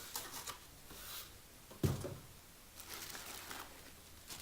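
Packaging and tools being handled as a power tool kit is unpacked: light rustling and small clicks, with one sharp thump of something set down or knocked about two seconds in.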